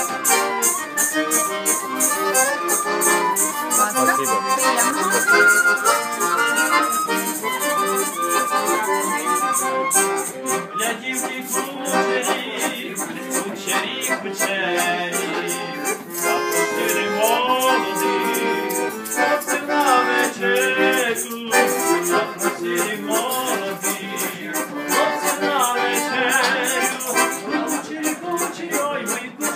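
Live traditional Ukrainian folk music: a piano accordion plays a lively tune over a rattle shaken in a steady beat. A second melodic part joins about twelve seconds in.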